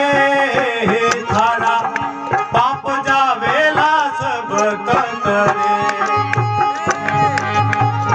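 Rajasthani devotional bhajan music: quick drum strokes under a melodic line that bends in pitch, with a low steady drone coming in about six seconds in.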